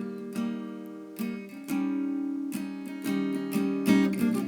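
Acoustic guitar strummed and plucked, chords ringing and fading between strokes, with no singing.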